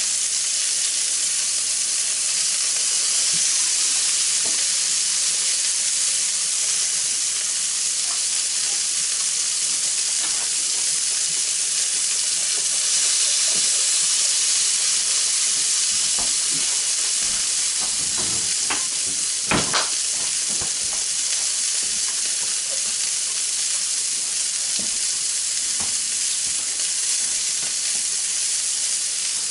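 Beef burger patty sizzling steadily on a hot flat griddle pan. A few light clicks come through, and two sharp knocks close together about twenty seconds in.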